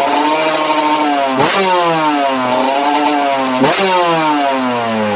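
Freshly assembled two-stroke motorcycle engine running, its throttle blipped about a second and a half in and again near four seconds, the revs shooting up and sinking slowly back each time. It is running well.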